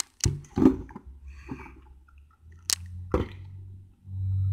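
Handling noises: a few light clicks and knocks as a plastic puzzle box and cube are set down on a glass tabletop. A low steady rumble grows louder near the end.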